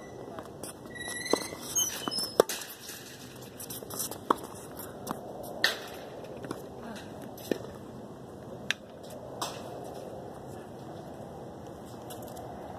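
Scattered sharp knocks of tennis balls being hit and bouncing on hard courts, irregularly spaced, with a few brief high squeaks about a second in.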